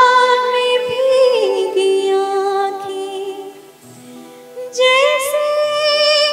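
A woman singing a Hindi film song in ghazal style with harmonium accompaniment, drawing out long melismatic notes with vibrato. The held note slides down about a second in, fades, and a new, higher phrase begins near the end.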